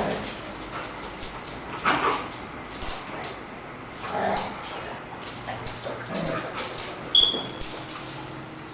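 Dogs at play, giving short yips, whines and barks every couple of seconds over a scuffle of clicks and scrapes. A sharp, high, brief squeak comes about seven seconds in.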